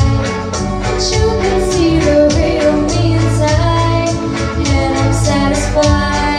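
A woman singing into a handheld microphone over backing music with a steady beat.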